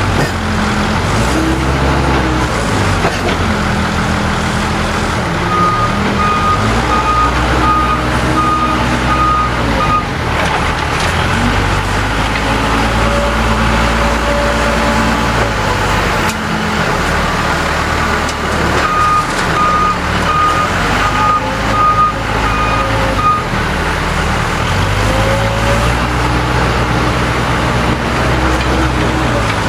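Case 580L backhoe's four-cylinder diesel engine revving up and down as it works through loading cycles. A reverse alarm beeps steadily twice, for about four or five seconds each time, once about five seconds in and again past the middle.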